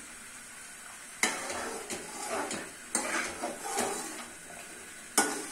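Metal spatula stirring and scraping semolina halwa in a metal pan, starting about a second in. Several sharp clanks ring out as the spatula strikes the pan, the loudest near the end.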